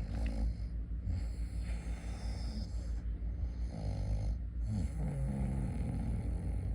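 Snoring: several drawn-out snore breaths, some with a rising and falling buzzing tone, over a steady low rumble.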